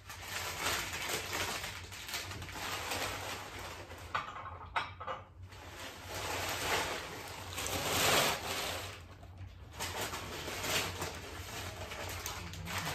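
Newspaper and packing paper crinkling and rustling in uneven bursts as wrapped glassware is unwrapped, with light knocks of glass dishes set down on the table.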